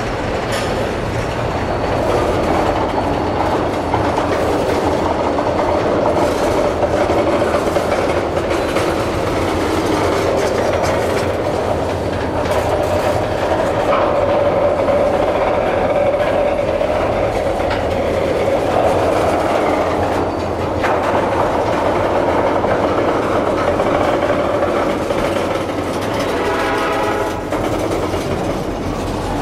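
Freight train tank cars rolling slowly past on street-running track: a steady rumble of wheels on rail with clicks and clacks over the rail joints. A brief pitched tone sounds near the end.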